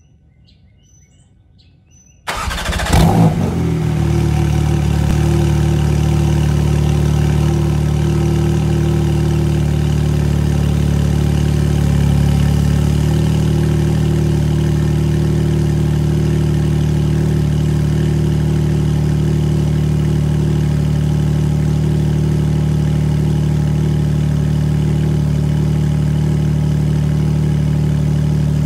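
Porsche 992 Turbo S twin-turbo flat-six cold-starting through an Akrapovic titanium exhaust with link pipes: the engine catches about two seconds in with a brief flare of revs, then settles into a steady cold idle.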